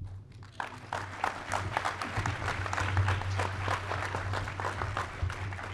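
Audience applauding: a crowd clapping that builds about half a second in and dies away near the end, over a steady low hum.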